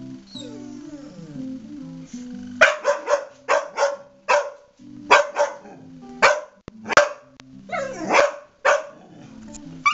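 Dog barking at a dog on a computer screen: about a dozen short, sharp barks in quick clusters, starting about two and a half seconds in, with one longer drawn-out call near the end. Music plays underneath throughout.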